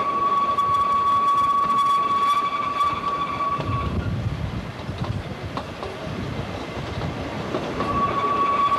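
Ikawa Line narrow-gauge train heard from on board: steady running rumble of the wheels on the track, with a steady high-pitched wheel squeal that stops about four seconds in and returns near the end.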